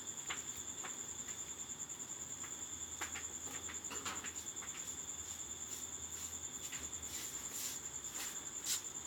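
Insects trilling in a steady, high-pitched drone, with a few faint clicks scattered through.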